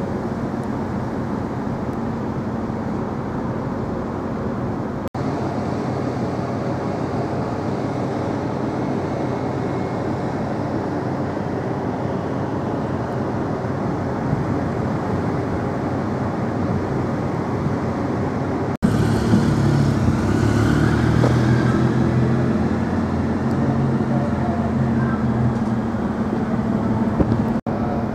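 Steady drone of a ferry's engines with a rushing noise, cut abruptly three times; after the second cut the hum is louder and deeper, with a brief hiss higher up.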